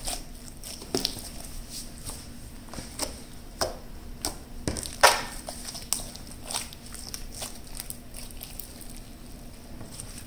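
Homemade glue-based slime from an Elmer's color-changing slime kit being squeezed, stretched and pressed by hand, giving irregular small pops, clicks and crackles, with the loudest pop about five seconds in.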